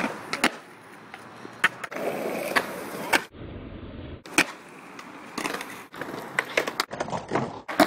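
Skateboards on concrete: the hard wheels roll with a steady grind, broken by sharp snaps and clacks as the board is popped, flipped and landed. The sound changes abruptly several times.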